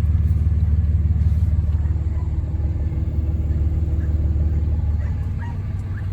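Motor vehicle engine running steadily, a low rumble that eases slightly after about five seconds.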